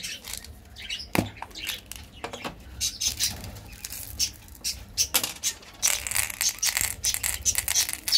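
Small candy-coated chocolate buttons clicking and rattling against a red plastic ball-shaped capsule and the hands as the capsule is opened and the candies are tipped into a palm and into the half-shell. There is one sharper knock about a second in, and a dense run of rattling near the end.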